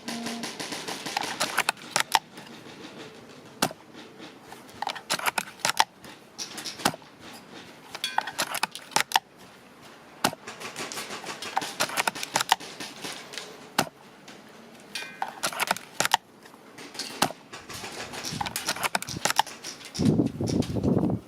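Airsoft bolt-action sniper rifle of the Tokyo Marui VSR-10 type being fired and worked: sharp single shot reports, with quick runs of clicks from the bolt being cycled between them. A louder rushing noise begins near the end.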